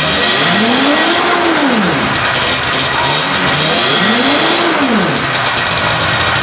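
Vintage Polaris 440 two-stroke snowmobile engine running, blipped twice: the revs rise and fall about half a second in, and again about four seconds in.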